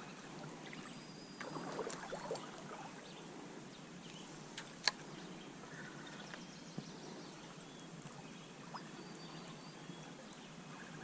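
Faint steady rush of flowing stream water, with a few sharp clicks, the loudest about five seconds in.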